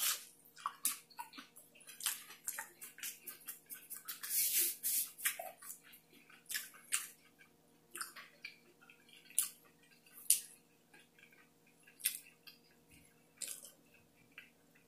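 Close-miked chewing of deep-fried snow crab leg: wet mouth clicks and lip smacks, busiest about four to five seconds in, then fewer and further apart.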